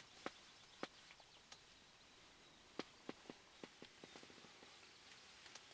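Near silence broken by faint, irregular sharp clicks: a few single ticks in the first second and a half, then a quicker run of small ticks around the middle.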